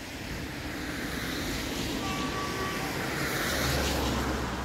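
A road vehicle passing by: a rushing tyre-and-engine sound with a low rumble that swells to a peak just before four seconds in and then eases off, with a brief faint tone about two seconds in.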